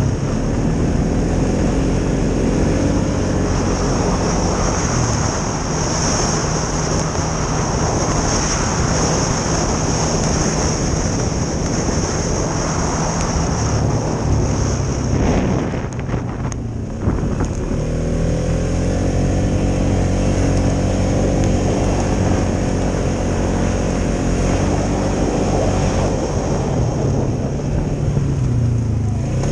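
2016 Polaris Sportsman 570 ATV's single-cylinder engine running under way, its pitch rising and falling with the throttle. About sixteen seconds in the throttle eases off briefly, then the engine picks up again.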